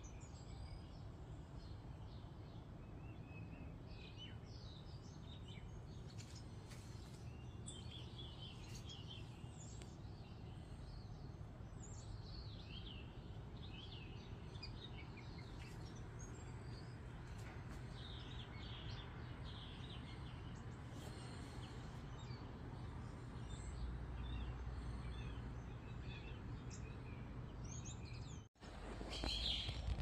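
Birds chirping in many short, scattered calls over a steady low background rumble. Near the end the sound drops out for an instant, then comes back with louder chirping.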